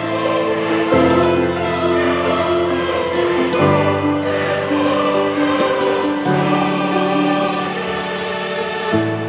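Background music of slow, held chords that change about every two to three seconds.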